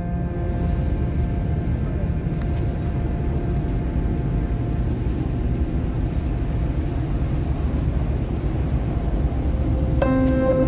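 Steady engine and road noise heard from inside a coach bus cruising on a highway. Background music fades out in the first moment, and a new musical phrase starts near the end.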